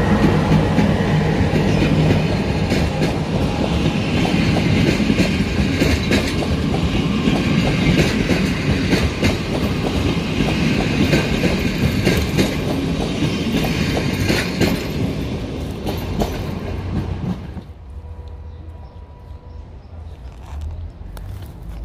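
Passenger coaches of a train behind an electric locomotive rolling past, a steady rumble with rapid clicking of wheels over the rails. About three-quarters of the way through the sound cuts off to a much quieter low background rumble.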